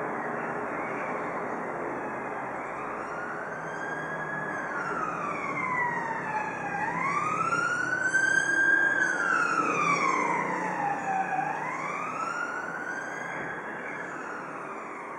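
Emergency vehicle siren in a slow wail, rising and falling about every four and a half seconds, growing louder to a peak about halfway through and then fading as it passes. Steady background noise runs underneath.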